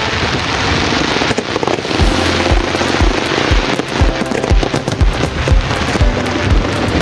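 Fireworks bursting and crackling over music, with many sharp cracks; a steady low beat about twice a second comes in about two seconds in.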